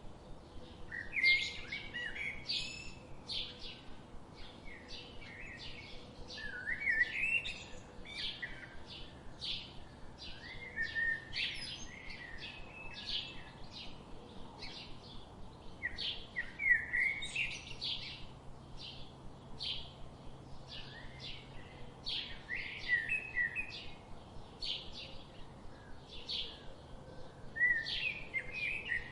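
Several songbirds chirping and trilling, with bursts of quick sweeping notes every few seconds among a steady run of short chirps.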